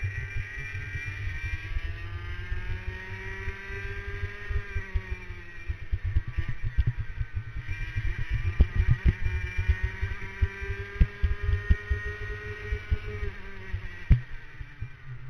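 Racing kart engine on a Tonykart OTK chassis, heard from an onboard camera as it accelerates and lifts through the lap: the pitch climbs for a few seconds, drops, then climbs and drops again. Low, uneven thumping from wind and vibration on the microphone runs underneath, with one sharp knock near the end.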